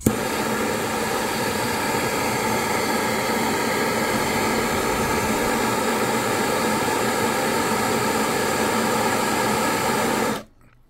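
Handheld gas torch flame hissing steadily as it keeps solder molten for tinning a stripped brushless motor wire, then shut off abruptly near the end.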